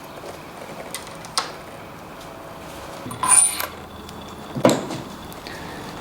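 Tools and bicycle parts being handled during a mountain bike assembly: a sharp click about a second and a half in, a short clatter with a brief high metallic ring around three seconds in, and a knock near five seconds.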